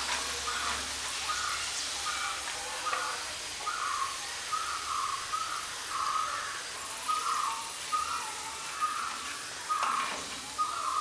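Hot oil sizzling steadily as pieces of dried tapioca fry and are lifted out with a slotted spoon. Over it, a bird chirps at one pitch about twice a second, from about half a second in.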